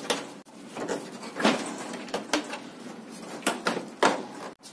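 Plastic front grill of a Midea split AC indoor unit being pressed back onto the body, knocking and clicking as its locks are worked into place: a series of about eight sharp knocks, the loudest about a second and a half in and again near the end.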